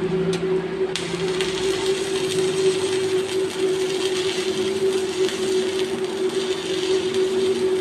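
Arc welding during a test run of a welding machine. The arc crackles and sizzles steadily from about a second in, over the machine's constant hum.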